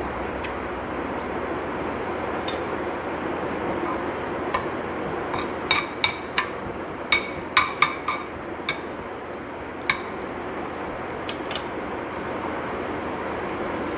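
Curry leaves sizzling steadily in hot ghee in a pan. In the middle comes a run of sharp clicks as a spoon knocks against the pan while the leaves are stirred.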